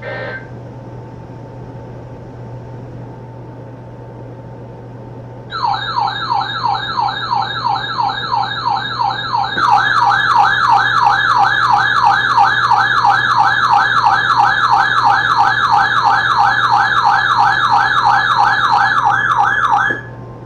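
Electronic weather-alert siren on a weather radio: a fast warble of repeated rising sweeps, about four a second. It starts about five seconds in, gets louder about four seconds later, and cuts off just before the end, announcing an incoming warning. A low steady hum lies underneath.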